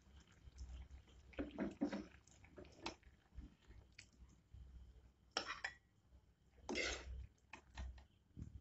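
Metal spoon scooping thick banana curry out of a metal kadai: faint wet squelches and scrapes of the spoon against the pan, with a few light clinks.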